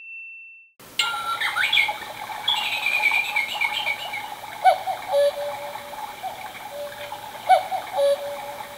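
Quartz mini cuckoo clock sounding its electronic cuckoo call with echo, two-note calls about halfway through and again near the end. Behind the calls run chirping birdsong and trickling water.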